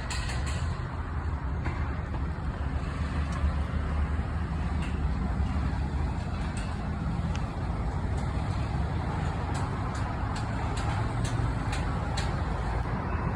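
Train at a station running with a steady low rumble, with scattered light clicks and rattles throughout.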